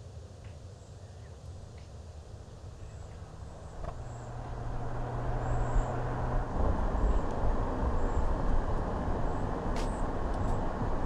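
Mercedes-AMG GLE 53 Hybrid Coupe's 3.0-litre turbocharged inline-six running as the car drives along the road. Engine and tyre noise grow louder about four seconds in and stay loud.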